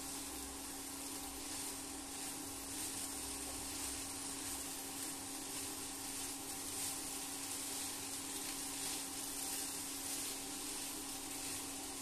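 Vegetables and grated paneer stirred with a wooden spatula in a frying pan on an induction cooktop: a soft, steady sizzle with light stirring noises, over a steady hum.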